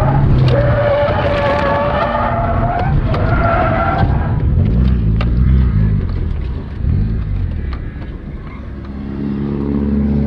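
Car tyres squealing through a drift, with the engine running underneath, heard from inside the car. After about four seconds the squeal stops as the car slides off the tarmac onto grass, leaving a lower rumble with a few knocks and bumps. Near the end the engine revs up again.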